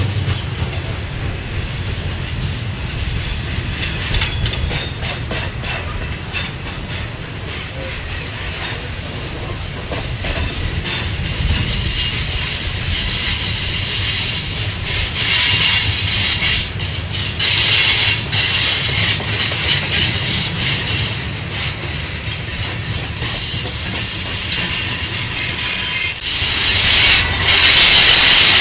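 Freight cars of a mixed freight train rolling past on a curve: steel wheels rumbling and clacking over rail joints, with high wheel squeal joining in about halfway through and getting louder. Near the end one thin squeal tone holds for a few seconds and stops abruptly.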